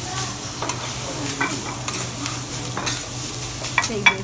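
Fried rice sizzling on a teppanyaki steel griddle while metal spatulas scrape and clack against the hot plate, with a few sharp clacks that are loudest about four seconds in.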